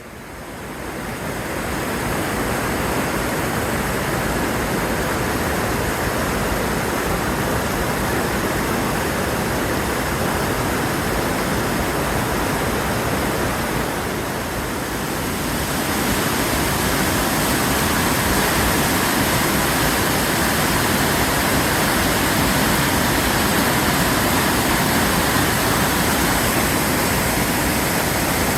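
Swollen, fast-flowing river in spate from snowmelt, its water rushing in a steady loud roar that builds over the first two seconds, dips briefly about halfway and then holds a little louder.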